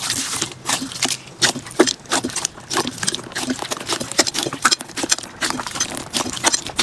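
Slime being squeezed and poked by hand: a rapid, irregular run of sticky clicks and pops, several a second.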